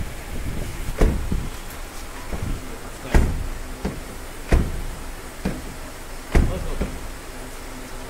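Hyundai i20 driver's door latch and outer handle being worked: four sharp clicks about one and a half to two seconds apart, with a few lighter clicks between. The lock has just been freed up by oiling and now works.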